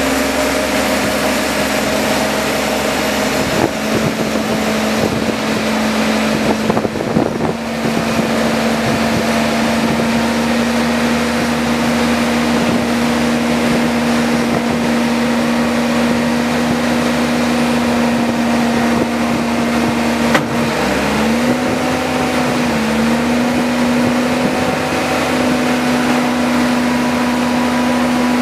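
Wheel loader's diesel engine running steadily close by, a constant drone over noise. There is a single sharp knock about two-thirds through, and right after it the engine's pitch dips twice.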